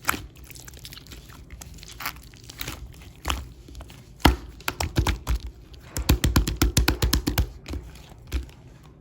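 Close-up crinkling and crunching clicks from something being handled, with a quick dense run of clicks about six seconds in.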